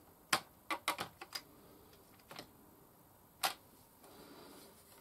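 Keys clicking on an Amiga 500 keyboard: a quick run of about six presses, then two more single presses.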